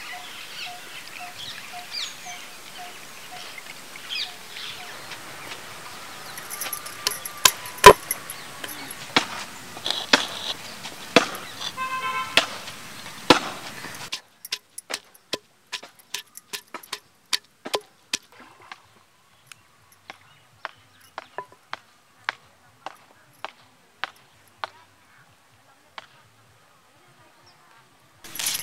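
A wooden pestle pounding garlic and ginger in a stone mortar: irregular sharp knocks, thinning out near the end. Before them, about the first half, is a steady outdoor background with a few scattered knocks.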